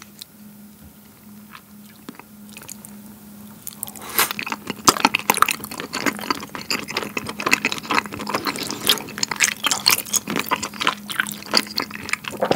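Close-miked chewing of spicy wheat-flour rice cakes (tteokbokki): wet, squishy mouth sounds with many small clicks, starting about four seconds in. Before that, only a few faint taps of chopsticks stirring the rice cakes in their sauce.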